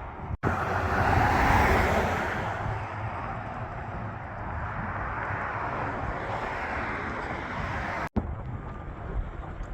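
Passing traffic: a vehicle's tyre and engine noise swells about a second in, then settles into a steady road hum. The sound cuts out abruptly for an instant twice.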